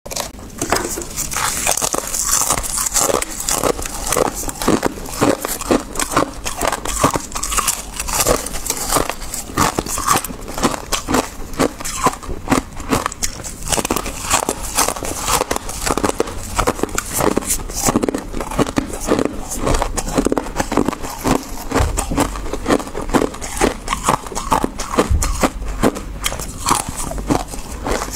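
Freezer frost being bitten and chewed close to the microphone: a dense, steady run of crisp, icy crunches and crackles, several a second.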